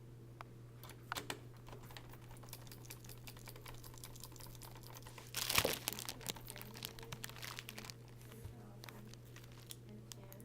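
Handling noise from laptop repair work: scattered small clicks and taps, with one louder rustle about five and a half seconds in, over a steady low hum.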